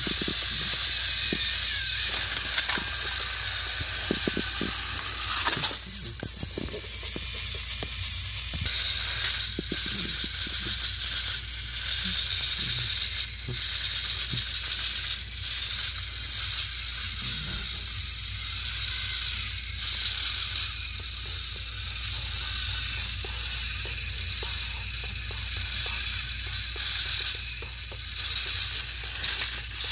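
Battery-powered Thomas & Friends toy engines pushing against each other nose to nose: small electric motors whirring steadily while their plastic gears and wheels rattle and click.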